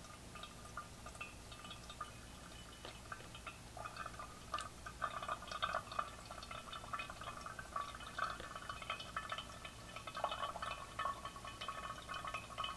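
Water trickling and dripping through the lid of a Cuisinart stainless thermal coffee carafe as it drains past the lid's float into the pot. The dripping grows louder and busier about four seconds in.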